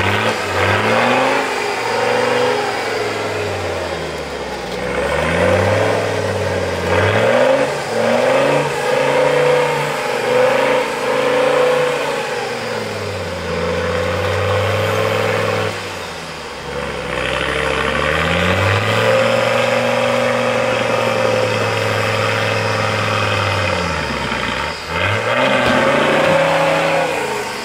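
Off-road buggy's engine revving again and again, the pitch climbing and dropping every few seconds, then held high for several seconds in the second half: the buggy, stuck tilted in a muddy rut, is being powered to drive out.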